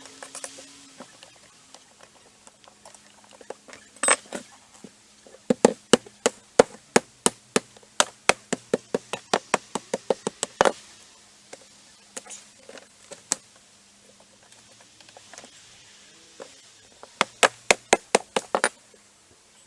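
Hammer blows on deck boards in quick runs of about three to four strikes a second, with pauses between the runs and a faint steady hum underneath.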